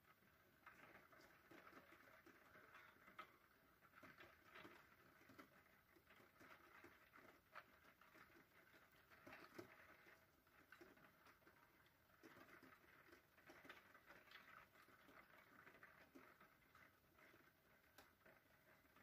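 Faint rain patter against a window pane: irregular small taps of drops over a soft, steady hiss.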